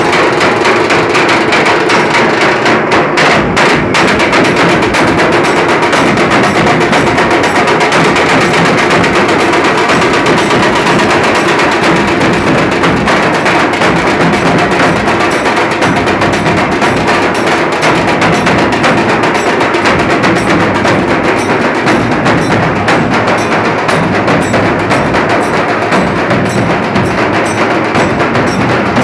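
A Nashik dhol troupe: many large barrel dhol drums beaten with sticks in a loud, fast, unbroken rhythm.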